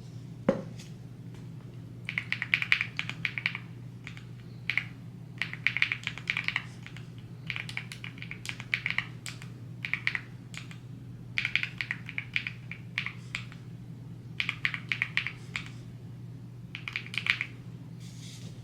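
Typing on a computer keyboard in short bursts of rapid key clicks, with a single knock about half a second in and a steady low hum underneath.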